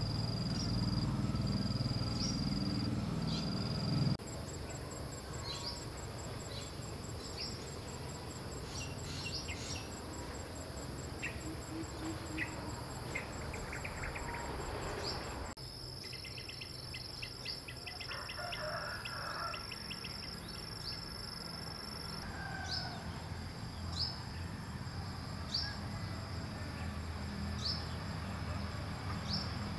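A knife chopping on a wooden block for the first four seconds, then steady high-pitched insect trilling with birds chirping every second or two.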